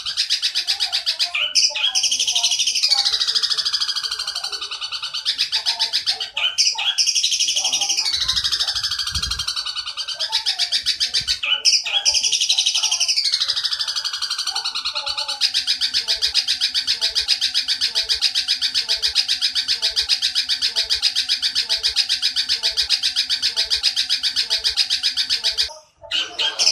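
A bird-song training recording of Eurasian tree sparrow long chattering mixed with the shrill 'kuntilanak' call: a fast, high trill. In the first half it slides down in pitch about every five seconds. From about halfway it holds one level pitch, then breaks off briefly near the end before starting again.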